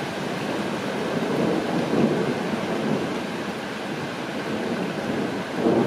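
Steady rain falling, with low rumbles of thunder swelling up about a second in and again near the end.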